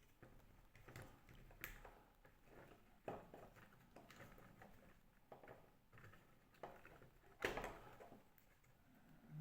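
Faint handling noises: scattered light clicks and small knocks of 3D-printed plastic parts and elastic string being worked by hand, the loudest about three seconds and seven and a half seconds in.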